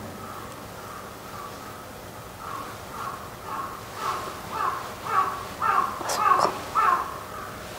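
Crow cawing sound effect: a rapid run of short, falling caws about twice a second, faint at first and growing louder from about a third of the way in. It is the stock Japanese comedy cue for an awkward silence.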